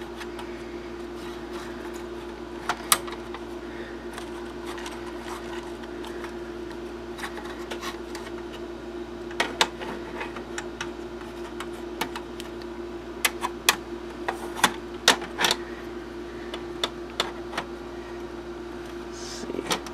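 Steel riser-adapter bracket of a computer case clicking and knocking against the sheet-metal chassis as it is lined up and seated, in scattered sharp taps, clustered around ten seconds in and again a few seconds later, over a steady low hum.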